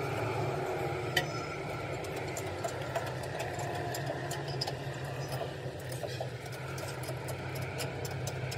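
Steady low hum of a running machine, with scattered light clicks throughout.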